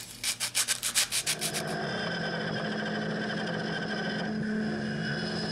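Fingers rubbing quickly over a freshly carved hardwood piece, then, a little under two seconds in, an X-Carve CNC's spindle running steadily with its bit cutting into plywood.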